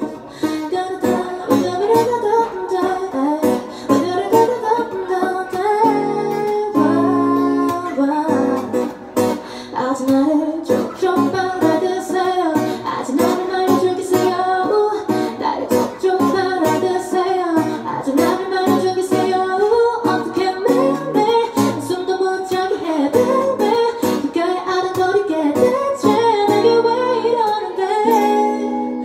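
A woman singing a song into a microphone to a plucked acoustic guitar accompaniment, performed live.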